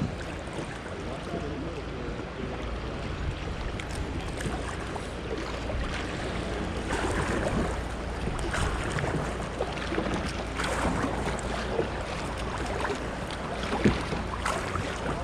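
Kayak on a river: water sloshing and splashing around the hull and paddle, with a few sharper splashes, over a steady low rumble of wind on the microphone.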